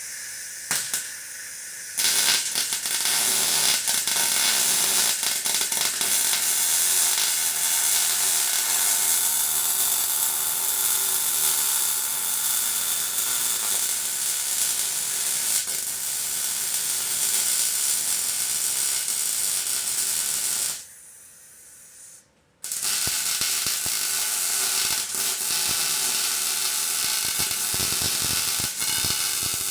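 Arc welding on steel rock sliders: a steady, loud crackling sizzle as a bead is laid. A short burst comes first, then one long weld, a break of about a second and a half, and a second long weld.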